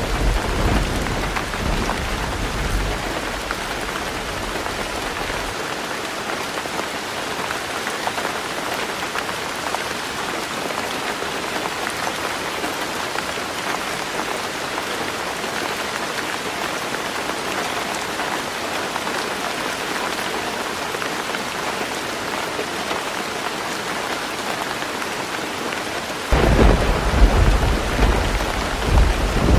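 Heavy rain falling steadily on a roof. A low rumble of thunder dies away over the first few seconds, and another starts suddenly near the end.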